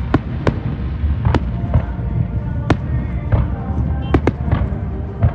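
Aerial fireworks shells bursting in a string of about ten sharp bangs, some coming in quick pairs, with music playing underneath.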